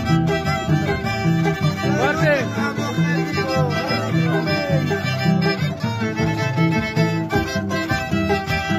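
Andean folk music: a violin plays a wavering, sliding melody over the plucked bass notes of an Andean harp, in a steady repeating rhythm.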